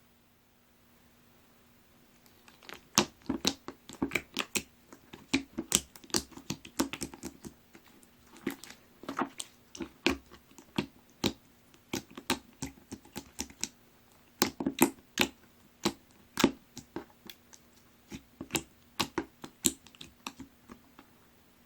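Hands squeezing and poking a watery jiggly slime (sundubu, 'soft tofu' slime), making irregular sharp clicks and pops, often several a second, starting about two and a half seconds in with a few short lulls.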